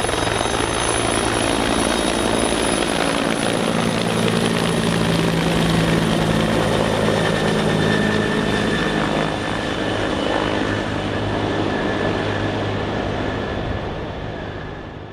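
Bell 412 firefighting helicopter's rotor and turbines running loud and steady as it climbs away from the water pickup after refilling its belly tank and passes overhead, with a thin high whine joining about halfway through. The sound fades out over the last two seconds.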